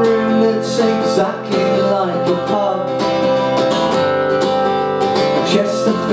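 Acoustic guitar strummed in a steady rhythm as live song accompaniment.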